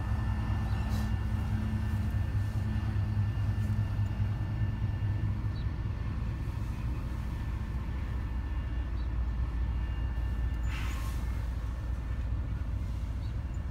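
CN diesel freight locomotive passing at a road crossing, its engine a steady low drone that fades out about five seconds in. A continuous low rumble of freight cars rolling past follows, with a short hiss near the end.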